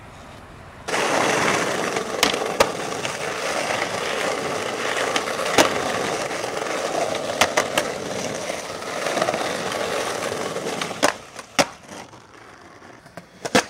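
Skateboard wheels rolling loudly over rough pavement, starting suddenly about a second in and stopping near the end. Sharp clacks of the board striking the ground are scattered through it, with a few more after the rolling dies down.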